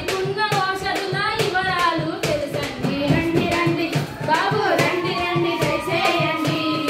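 Girls singing a Telugu folk song over a steady, quick percussive beat. A long held high tone comes in about four and a half seconds in.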